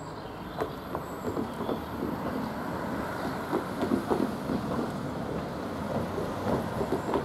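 Steam locomotive working in the distance, its exhaust beats coming through a low rumble and slowly growing louder.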